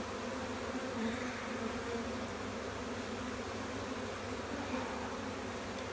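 A mass of honeybees from a swarm buzzing steadily around an opened hive box: a continuous low drone.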